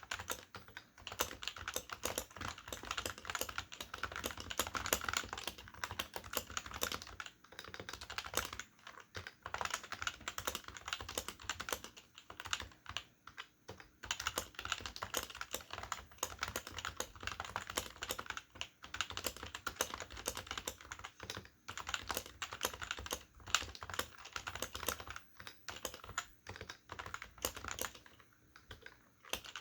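Fast continuous typing on a stock HHKB Professional keyboard with Topre electrostatic-capacitive switches and PBT dye-sublimated keycaps, its original rubber domes still crisp and snappy. Dense runs of key presses with a few short pauses, the longest near the end.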